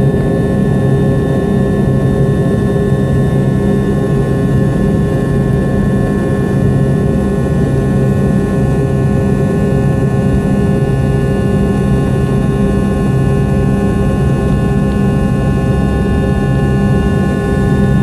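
McDonnell Douglas DC-9-32's Pratt & Whitney JT8D turbofan engines running steadily at high power, heard from inside the cabin. It is a loud, even rumble with several steady whining tones over it.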